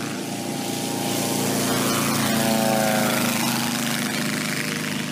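Light single-engine propeller plane's engine running on its takeoff run, growing louder as it passes close and then fading, its pitch dropping as it goes by.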